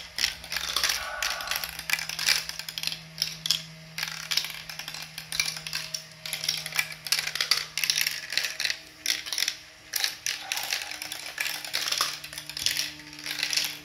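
Motorized chain elevator of a plastic marble run clicking and clattering as it lifts glass marbles, with marbles rattling through the plastic track, over a steady low motor hum.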